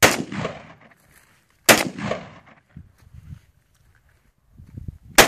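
Rifle shots: three of them, the second about a second and a half after the first and the third near the end, each trailing off in an echo.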